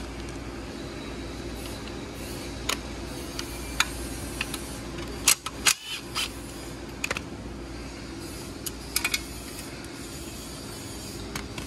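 Occasional sharp clinks and clicks of hand tools and loose bolts being handled during a dirt-bike teardown, a few seconds apart, over a steady low hum.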